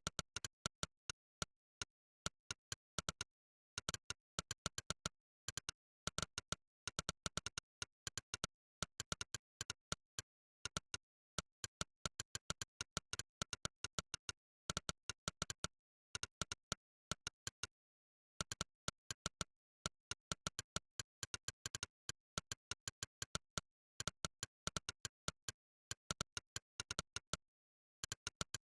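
Monkeytype's 'click' typing sound effect: a short, sharp click for every keystroke, coming in quick runs of several clicks a second with short pauses between them. The clicks stop near the end.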